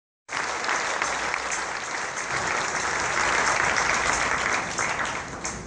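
Large concert audience applauding, a dense steady clapping that eases a little near the end.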